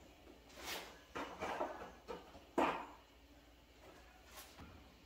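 Rummaging in a low kitchen cupboard: a few knocks and clatters of things being moved, the sharpest about two and a half seconds in.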